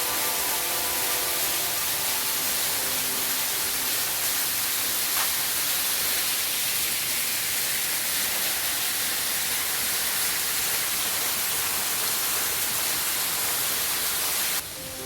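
Waterfall pouring steadily, a dense even rush of water. It cuts off suddenly near the end, where music comes in.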